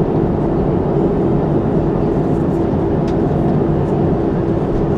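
Cabin noise of a Boeing 737-300 with its CFM56-3 engines running at steady low power: an even drone with a constant hum running through it.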